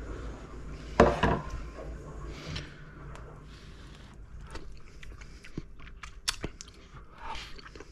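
A sharp knock about a second in, then soft scraping and a few light clicks as a wooden spoon stirs thick puréed potato leek soup in a metal pot.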